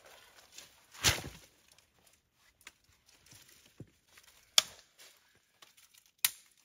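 An armful of dry branches dropped onto leaf litter with a clattering crash about a second in, then dry sticks snapped by hand, giving two sharp cracks, with light rustling and clicking of wood between.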